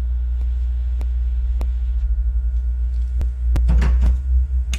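Steady, loud low electrical hum with a few faint sharp clicks scattered through it, and a short burst of broader noise about three and a half seconds in.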